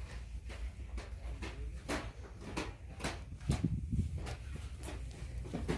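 Scattered clicks and knocks over a low background rumble, with a few heavier low thuds about halfway through.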